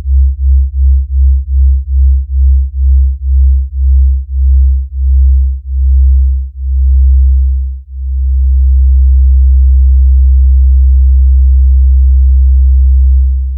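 A very low electronic tone from the film's score, pulsing about four times a second at first, the pulses slowing steadily until about eight seconds in it settles into one steady hum. It begins to fade out at the end.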